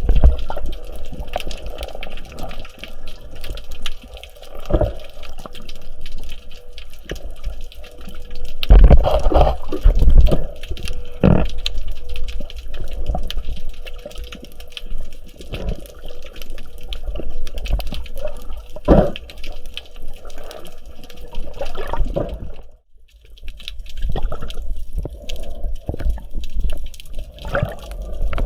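Water sloshing and bubbling around a spearfisher's camera, with irregular gurgling surges. The sound drops out briefly about 23 seconds in.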